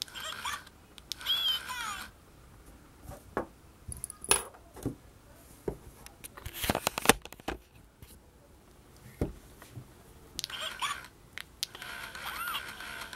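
Electronic 'I Choose You, Pikachu' talking plush toy saying its short squeaky recorded Pikachu calls four times, twice near the start and twice near the end, triggered by pressing its hands. In between, clicks and knocks of the toy being handled.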